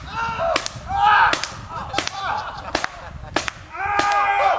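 Paintball marker fired about six times at a steady pace, each shot a sharp crack, with people crying out between the shots as they are hit.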